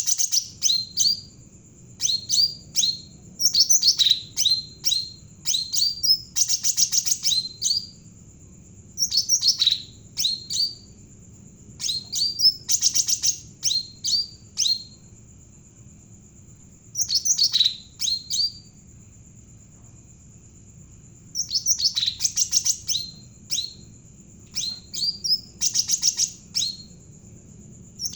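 Javan cucak ranting singing vigorously in repeated phrases of rapid, high chirps and trills, each phrase a second or two long with short pauses between. A steady high-pitched whine runs underneath.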